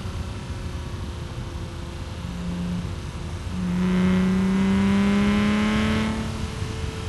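BMW E36 M3 straight-six through a Supersprint street exhaust with the catalytic converter removed, heard from inside the car. It runs lightly at part throttle, gives a brief push about two seconds in, then pulls hard with rising pitch for a couple of seconds before the throttle is lifted near the end.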